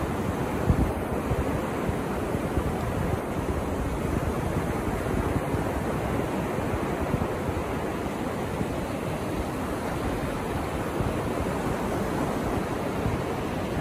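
Ocean surf: waves breaking just offshore and washing up a shallow sandy beach, a steady rushing.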